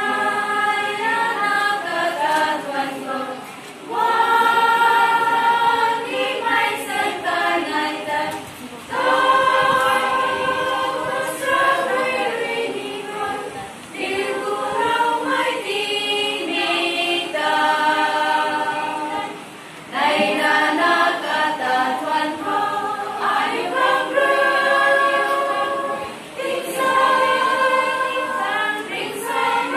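A group of women singing a hymn together, unaccompanied, in phrases of about five seconds with short breaks for breath between them.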